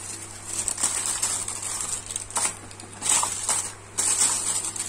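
A plastic courier mailer bag crinkling and rustling in irregular surges as it is handled and cut open with scissors, over a steady low hum.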